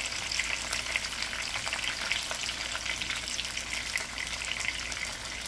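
Chicken pieces and green chillies frying in hot oil in a wok: a steady sizzle with a dense crackle of small pops.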